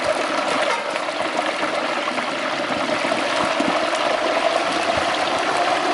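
Hot oil in a propane turkey fryer pot bubbling and sizzling steadily as a whole turkey is lowered into it.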